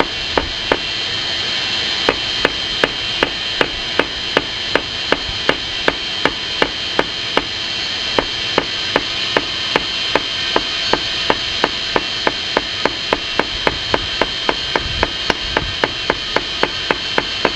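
Steady hand-hammer blows on a yellow-hot steel bar, about two and a half strikes a second with a brief pause near the start, over a steady hiss. The bar is being hammered on its corners to draw the square section round.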